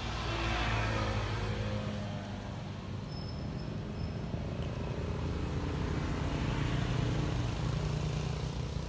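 Low drone of a motor vehicle engine, swelling about a second in and again around seven seconds in, as vehicles pass.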